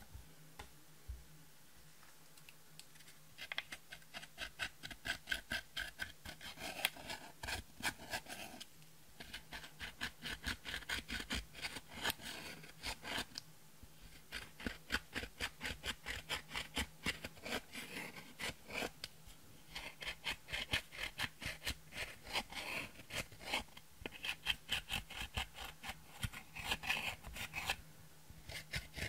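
Pen tip scraping and crushing pressed eyeshadow powder in a plastic palette: rapid, gritty scratching strokes that start about three seconds in and come in runs of a few seconds with short pauses between.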